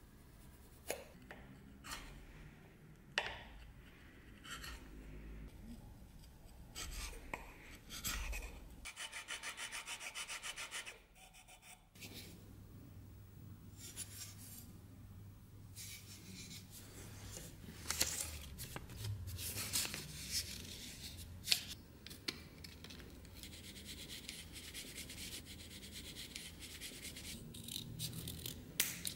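Hand tools scraping and rubbing on wood, with scattered light knocks and clicks. About 9 to 11 seconds in comes a run of fast, even rasping strokes.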